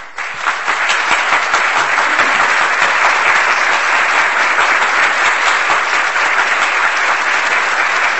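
Sustained applause from a large crowd: dense, steady clapping that swells up within the first second and then holds at an even level.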